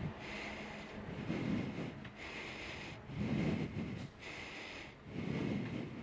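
A cyclist's breathing close to the microphone, one breath about every two seconds, over steady hiss of wind and road noise.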